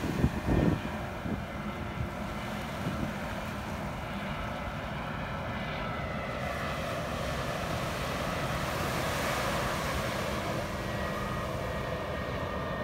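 Jet engine noise from a twin-engine airliner on final approach with its landing gear down, a steady sound growing slightly louder as it nears, with a faint whine coming in during the last few seconds. Surf and wind sound underneath, with a few bumps on the microphone about a second in.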